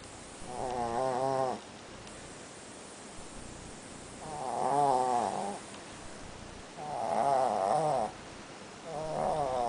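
Snoring: four drawn-out, pitched snores, each about a second long and about two to three seconds apart, with a wavering pitch.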